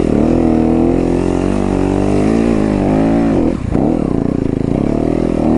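Yamaha YZ250FX dirt bike's single-cylinder four-stroke engine revving up and down in surges under load on a steep climb. The revs dip sharply for a moment about three and a half seconds in, then pick up again.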